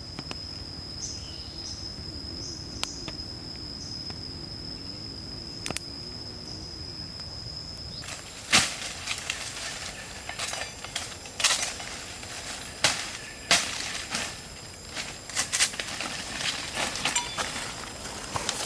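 A steady high insect drone that stops about eight seconds in, followed by irregular sharp knocks and crackles.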